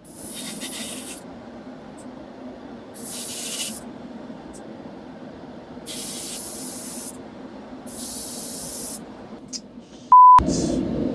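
Paint being sprayed in four short hissing bursts, a second or so each, a few seconds apart. A brief loud beep comes near the end.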